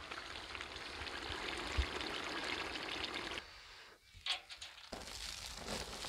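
A steady hiss, then a sudden quieter stretch in which cooking oil is poured in a thin stream into a metal bowl about four seconds in. Near the end a dry rustle starts as flour is tipped in.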